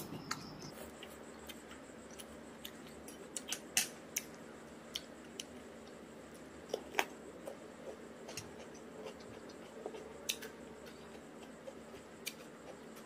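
Chewing with mouth clicks and smacks of a person eating noodles and cucumber: scattered sharp clicks, a few louder ones about four, seven and ten seconds in.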